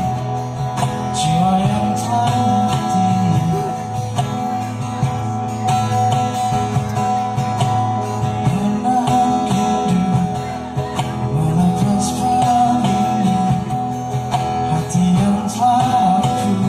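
Music: an acoustic guitar-led song playing, likely its instrumental intro.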